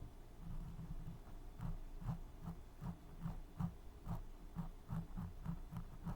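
ASMR ear cleaning: an ear pick scraping and rubbing inside a microphone's ear in short, irregular strokes, a few a second.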